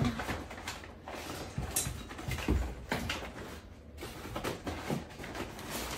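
Crumpled packing paper rustling and crinkling as hands rummage through a cardboard box, with a few soft bumps against the box.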